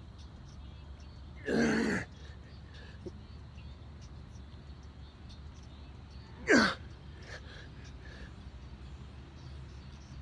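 A man's two hard breaths of exertion during push-ups, about five seconds apart: a half-second rushing exhale, then a shorter grunt that falls in pitch. A steady low hum lies beneath.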